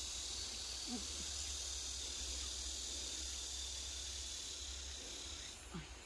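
Steady high-pitched chorus of insects that drops away near the end, over a low rumble.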